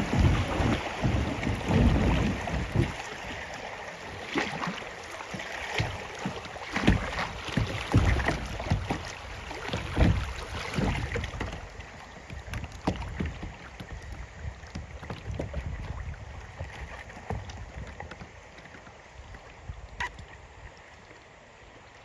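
A kayak being paddled on a river: irregular water splashes and paddle knocks, with wind buffeting the microphone. The buffeting and splashing die down over the second half.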